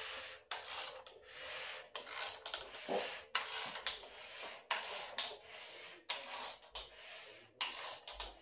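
Hand ratchet wrench clicking through repeated back-and-forth strokes, roughly one or two a second, while tightening connecting-rod bolts on an engine short block.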